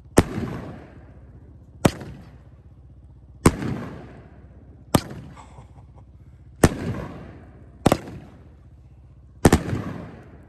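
Firework cake (Glitterati Junior) firing big willow-effect aerial shells. The shells burst with seven sharp booms, about one every one and a half seconds, and each boom trails off over about a second. The shots hit hard, harder than canister shells.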